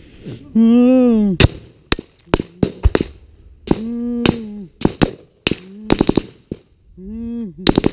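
Irregular gunshots, single cracks and short quick clusters of rapid fire, with a man's voice shouting several long drawn-out calls in between.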